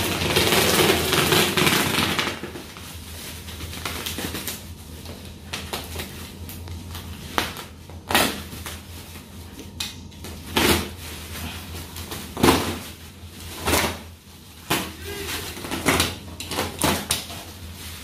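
Box cutter slicing and scraping through bubble-wrap packing, with a loud crinkling of plastic for the first couple of seconds, then scattered sharp cracks and scrapes every second or so.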